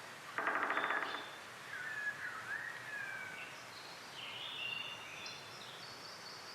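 Birds calling outdoors: a short harsh, buzzy call about half a second in, then whistled notes sliding up and down, then higher chirps, over a faint steady hiss.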